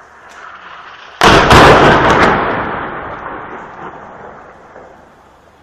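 A heavy shell explosion about a second in: a sudden loud blast with a few sharp cracks, followed by a long rolling rumble that fades away over about four seconds. A rising rush of noise comes just before the blast.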